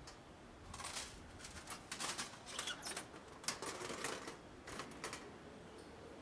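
Faint, irregular light clicks and taps, a few a second, that start about a second in and die away near the end.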